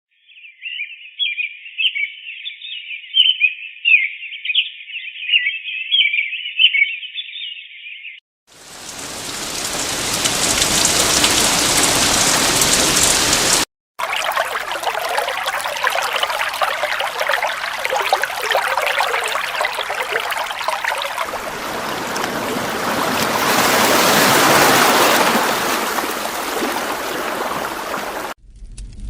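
White noise sound machine playing several of its built-in soothing sounds in turn. First comes a thin, high, flickering sound for about eight seconds. Then, after a brief silence, a rushing water-like noise fades in, cuts out for a moment, and resumes, changing character partway before stopping abruptly.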